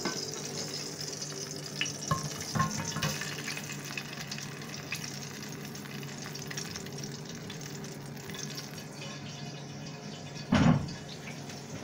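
Steady sizzle of hot oil and freshly seared lamb, with a low hum underneath, thinning out as it goes. A few light utensil clicks come about two seconds in, and one loud knock comes near the end.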